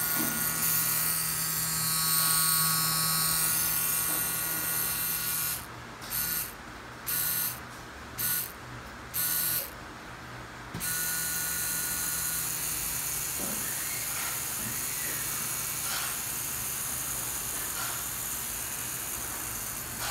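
CNC Q5 Grenade short rotary tattoo pen running with a steady high buzz. About six seconds in it is stopped and started in four short bursts, then it runs steadily again.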